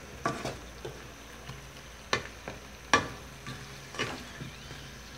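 Wooden spatula stirring and turning glazed sweet potato slices in a stone-coated wok, with several sharp knocks and scrapes against the pan over a light sizzle.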